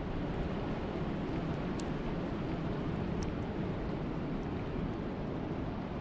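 Steady wind and rain, an unbroken low rush, with a few faint ticks of individual drops.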